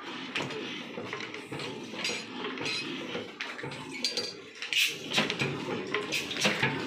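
Old Ruston stationary oil engine with a heavy flywheel turning over while being started, giving a steady metallic clinking and clatter. From about five seconds in, sharper knocks come roughly three times a second.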